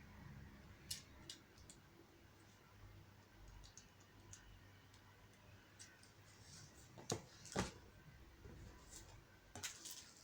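Small plastic clicks and taps of Lego pieces being handled and pressed together, scattered and sparse, with two louder snaps about seven seconds in and a few more near the end.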